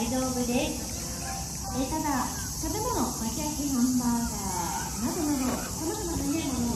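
Steady high-pitched chorus of insects, with people's voices talking in the background.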